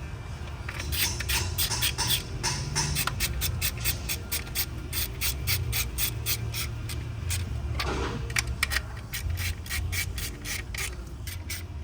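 Ratchet wrench with a 10 mm socket clicking in runs of quick strokes as the ignition coil plate bolts are tightened down.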